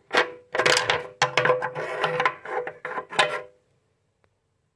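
Old threaded metal fuel cap on a 1951 Homelite generator's gas tank being twisted loose, its rusty threads grating and squeaking in a run of short twists. They stop suddenly about three and a half seconds in as the cap comes free.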